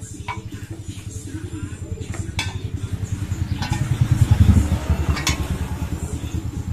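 A motorcycle engine passing by, its pulsing growing louder to a peak about four and a half seconds in, then fading. A few light clinks of spoons on plates.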